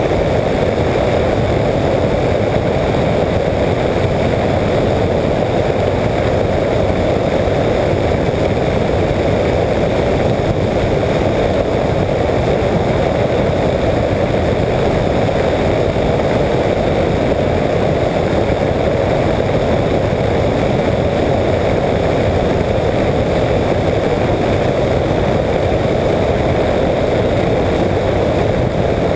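Apollo Jet Star microlight trike's engine and pusher propeller running steadily in cruising flight, a constant loud drone with no change in pitch or level.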